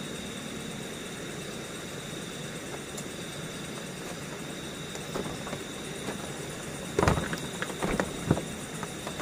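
Steady rush of a stream flowing under a bridge, with a thin steady high tone over it. About seven seconds in, a short cluster of knocks and rustles.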